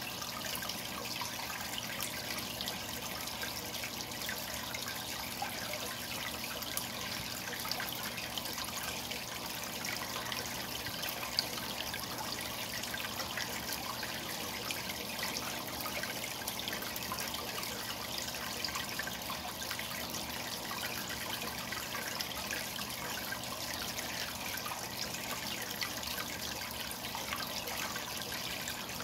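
Aquarium water bubbling at the surface as a steady stream of air bubbles rises and bursts through it: a continuous trickling and splashing made of many small pops.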